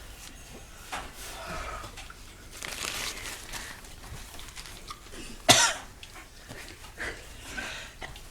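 A person's sharp cough about five and a half seconds in, with a few fainter breathy coughs or throat-clearing sounds around it.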